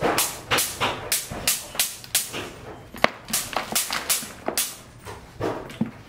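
Rapid scraping strokes of a hand tool digging soil and rubble, about three a second, with one sharp knock about halfway through.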